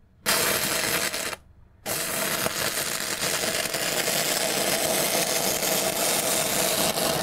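Stick-welding arc from a 36-volt lead-acid battery-bank welder, 5/32-inch electrode on rebar. The arc strikes, goes out after about a second, is restruck half a second later, then runs steadily for about five seconds before breaking off suddenly.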